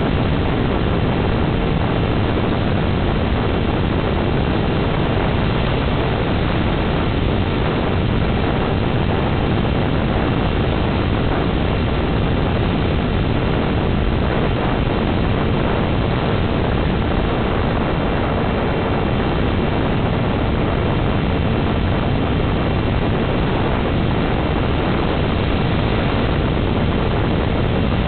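Steady in-flight noise from the onboard audio of a Dynam HawkSky electric RC plane: an even rushing sound with faint constant tones, unchanged in level and pitch throughout.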